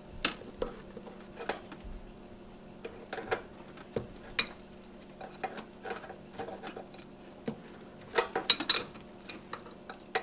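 Crescent wrench tightening the threaded EGR tube fitting on the valve, giving irregular metallic clicks and clinks as the wrench is reset and turned, with a quick run of clinks about eight seconds in.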